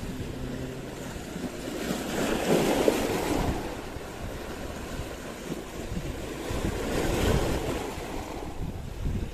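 Small waves washing over shoreline rocks, rising and falling in surges, louder about two and a half seconds in and again about seven seconds in, with wind on the microphone.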